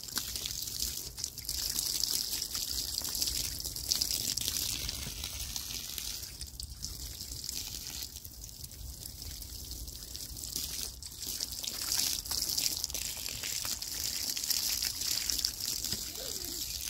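Garden hose water running and splashing over a skinned squirrel carcass on a table top, a steady trickling hiss as the meat is rinsed.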